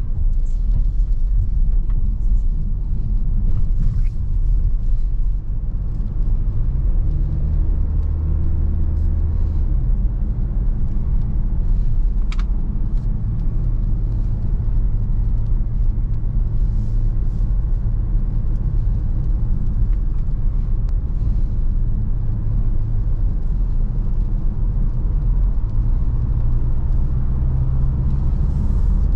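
Mercedes-Benz V 300 d van driving: steady low rumble of its four-cylinder diesel and the road, the engine note stepping up and down several times as speed and gears change. A brief sharp click sounds about twelve seconds in.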